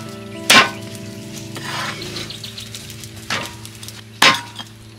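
Meat cleaver chopping through a roasted turkey onto a leaf-covered wooden table: three sharp chops, about half a second in, past three seconds and near four seconds, with a brief wet tearing of meat between them.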